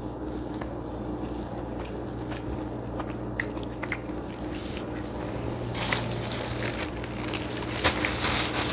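A few small clicks of eating by hand, then from about six seconds in a loud crinkling and rustling of a thin plastic bag of kerupuk crackers being picked up and handled, over a low steady hum.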